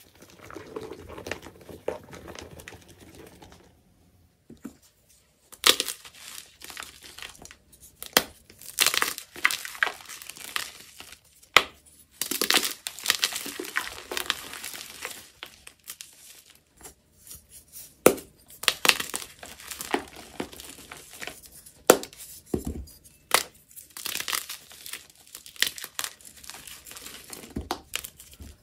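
Purple Holi powder poured softly over blocks of SPRI gym chalk for the first few seconds. After a short pause, bare hands crush and crumble the chalk blocks, with dry crunches and sharp crackling snaps in irregular clusters.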